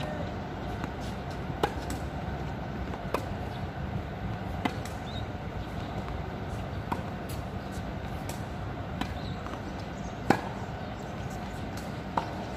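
Tennis warm-up rally on a hard court: sharp pops of racket strings striking the ball and the ball bouncing, about one every second and a half, the loudest about ten seconds in, over steady outdoor background noise.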